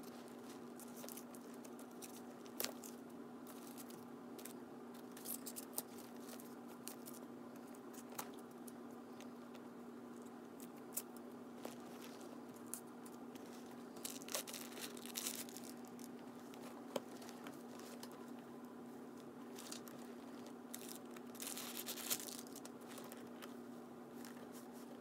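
Hands handling a new leather backpack: scattered light clicks and taps, with short bursts of crinkling from the tissue wrapped around its zipper pulls, over a steady low hum.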